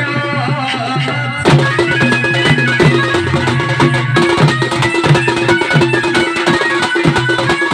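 Live Danda Nacha folk music. About one and a half seconds in, a wavering melody gives way to loud, busy drumming under a steady held tone.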